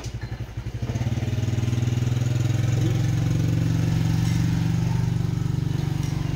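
A small engine running steadily with a fast even pulse. It grows louder about a second in and eases off slightly near the end.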